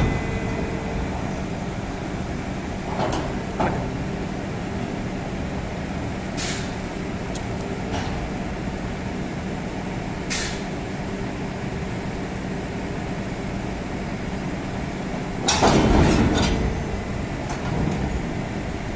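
Railway wagon shifter machinery running with a steady hum under an open freight wagon. Short hissing bursts come a few times, and a louder cluster of knocks and clatter comes about sixteen seconds in.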